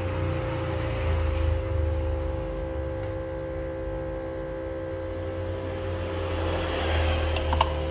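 Steady machine hum made of several even tones over a low drone, with a faint rubbing hiss that swells near the end and a couple of sharp clicks about seven seconds in.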